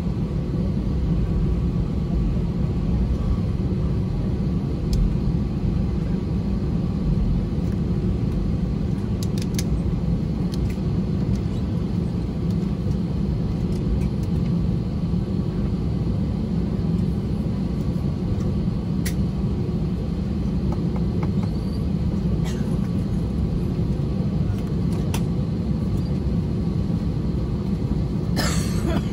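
Steady low cabin rumble of an Airbus A320-271N taxiing on the ground, its Pratt & Whitney PW1100G geared turbofans at taxi idle. A few faint ticks are heard, and a short burst of noise comes near the end.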